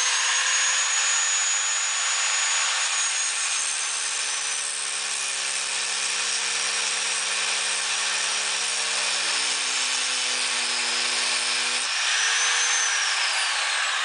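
Electric angle grinder running at speed and grinding metal off the latch of a baggage-door lock, so that the lock will latch with the door fully closed. Its whine sags a little under the load, rises again about twelve seconds in when the disc comes free, then falls away near the end as the motor spins down.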